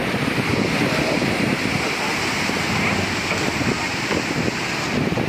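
Rough sea surf breaking and washing around concrete breakwater tetrapods and a grounded boat's hull, with wind buffeting the microphone.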